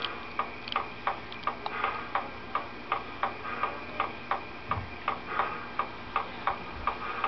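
Steady, evenly spaced clicking, about three clicks a second, from a model train running slowly along the track.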